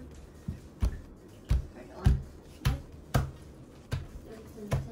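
A series of sharp knocks or thumps, about one every half second but unevenly spaced.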